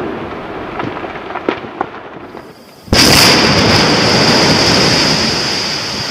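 Volcanic eruption: a rumble with a few sharp cracks fades down, then cuts back in suddenly and loud about three seconds in, with a steady high hiss over it.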